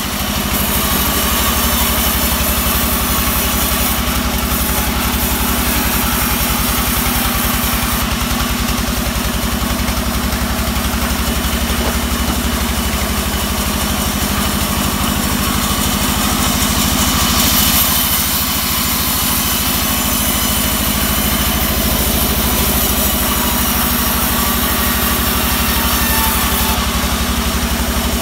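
Small sawmill running steadily, its engine giving a constant low drone with a fast regular beat under a hiss, as a teak log is fed on the carriage. The high hiss swells briefly about 17 seconds in.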